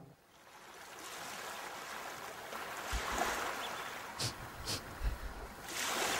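Sea surf washing onto a sandy beach with wind buffeting the microphone, a steady rushing noise. A few soft low thumps and two brief hissing swishes come in the middle, and the surf and wind noise grows louder near the end.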